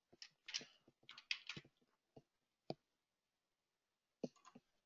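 Faint computer keyboard typing: irregular single keystrokes over the first few seconds, then a quick cluster of clicks near the end.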